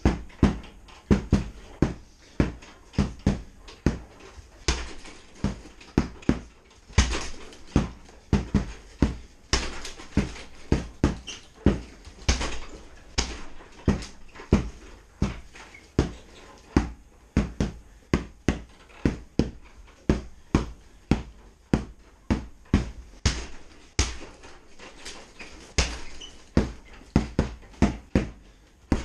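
A heavy punching bag struck again and again with a hand-held tomahawk: dull thuds, about two or three a second, in uneven runs.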